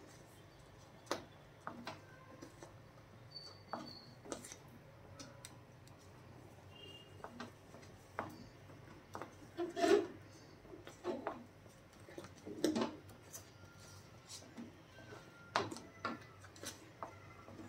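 Wooden spatula stirring thick wheat halwa in a brass kadai, with irregular knocks and scrapes of the spatula against the metal pan, the loudest about ten seconds in.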